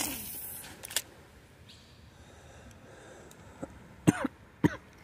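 A person coughing twice, short and sharp, about half a second apart near the end. Before that there is a brief hiss at the start and a click about a second in.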